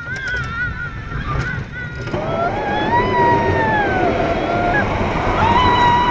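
Roller coaster ride: a steady rumble and rush of wind and track noise. From about two seconds in, riders give long high-pitched screams that rise and fall.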